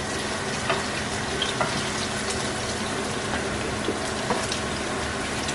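Chicken adobo sizzling in a frying pan: a steady hiss with scattered small pops.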